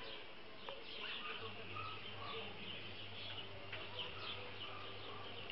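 Homemade electric outboard motor running, a low steady hum that starts about a second and a half in, with birds chirping in the background.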